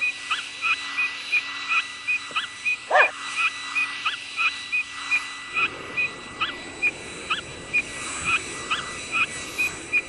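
Cartoon sound effects: short high chirps repeating about three times a second, with one louder chirp about three seconds in. From about halfway, a steady rushing noise joins them.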